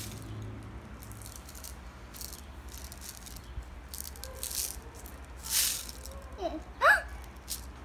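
Candy sprinkles rattling inside a small plastic shaker jar, shaken out in a series of short bursts. A brief rising squeaky sound comes near the end.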